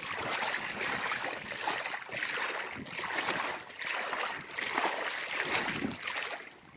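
Feet wading through shallow lake water, each step making a swishing splash at a steady pace of about one a second.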